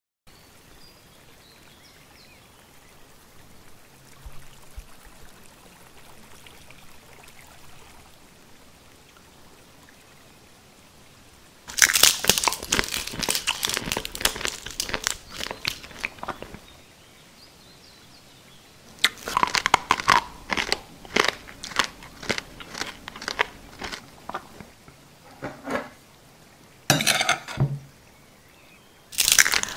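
Faint room tone, then from about twelve seconds in, bursts of loud, rapid crunching and crinkling from a dish of moss and soil clumps being broken up and scooped with a fork. One long burst runs a few seconds, another runs about seven seconds, and short ones come near the end.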